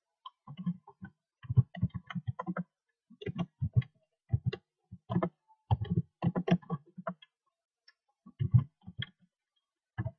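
Computer keyboard being typed on: short key clicks in irregular runs, with brief pauses between the runs.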